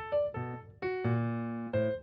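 Instrumental background music: a melody of short struck notes, with one longer note held from about a second in.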